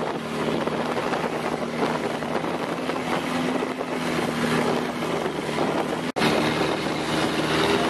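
Longtail boat's engine running steadily under way, with wind on the microphone. The sound cuts out for an instant about six seconds in.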